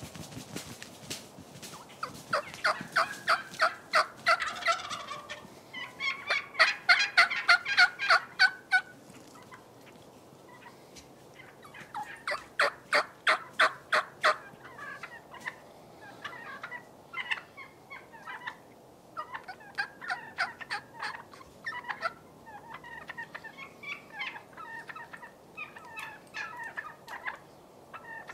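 Merriam's wild turkeys gobbling: three loud rattling runs of rapid pulses, about two, six and twelve seconds in, then fainter scattered calls.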